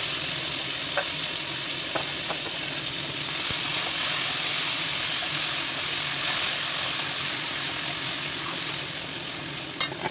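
Chopped tomato and onion-spice masala sizzling steadily in hot oil in a kadhai while a spatula stirs and scrapes it round the pan. The sizzle eases a little near the end, where the spatula gives a couple of sharp taps on the pan.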